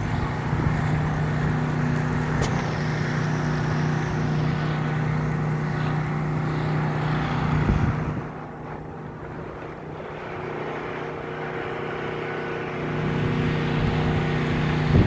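Engine running at a steady pitch, typical of a petrol generator, under a rushing haze. It fades about eight seconds in and swells back near the end.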